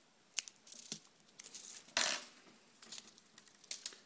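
A small SMD LED being picked out of its plastic carrier tape by hand: a series of small sharp clicks and crinkles, with a short rasp of the cover tape peeling about two seconds in.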